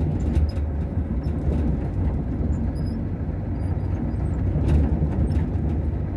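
Motor vehicle driving slowly on a dirt road, heard from inside the cab: a steady low engine and road rumble with scattered small knocks and rattles from the rough surface.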